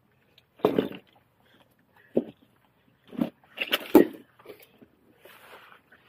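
Rocks clunking and scraping as they are shifted by hand among boulders on a rocky shore. There are about five sharp knocks, the loudest around four seconds in, then softer scuffing.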